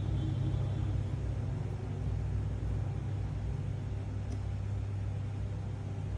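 A steady low hum of background noise, even and unchanging, with no speech.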